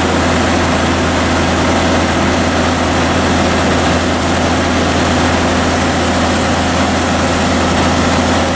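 Claas Dominator 98 SL Maxi combine harvester running steadily at working speed while its unloading auger pours grain into a trailer.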